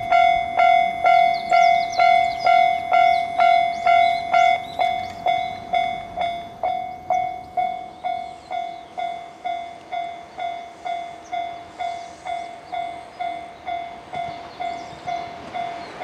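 Japanese level-crossing warning bell ringing in a steady electronic ding-ding, about two strikes a second, becoming fainter after about six seconds. Near the end the rumble of an approaching electric train rises under the bell.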